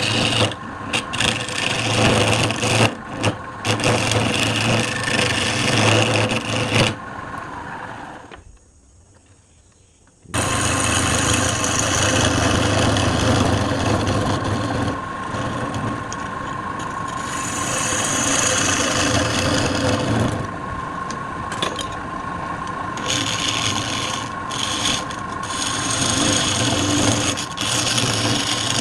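Wood lathe running with a turning tool cutting and scraping the spinning wood, over a steady motor hum. The cutting fades about a quarter of the way in, goes almost quiet for a couple of seconds, then starts again abruptly.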